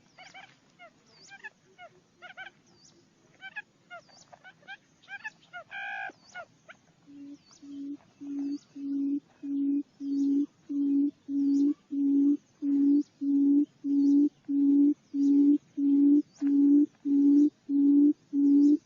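Barred buttonquail's call: about seven seconds in, a long run of low hooting notes starts, roughly one and a half to two a second, growing louder, the call used to lure the birds in. Before it, small birds chirp.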